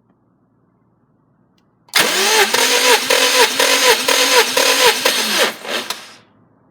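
Starter motor cranking a Subaru EJ205 2.0-litre flat-four engine for about four seconds. Its whine dips and recovers about twice a second as each cylinder comes up on compression. The engine does not catch, and the cranking winds down and stops just after six seconds in.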